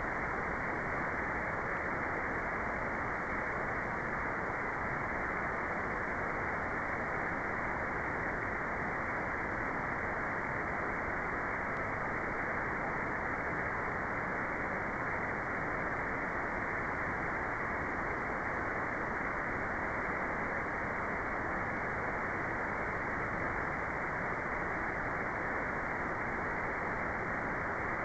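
Steady generated white noise: an even, unchanging hiss with no treble above the upper midrange.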